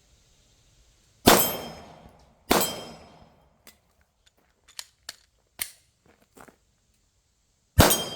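Three 9mm shots from a Glock 19 Gen 5 pistol, the first two about a second apart and the third about five seconds later, each trailing off in a short echo. Light clicks and taps fall between the second and third shots.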